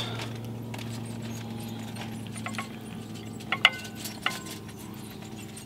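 A silicone spatula scooping soft, sauced chips from a skillet onto enamelware plates, with a few short clinks and scrapes about two and a half, three and a half and four seconds in, over a steady low hum.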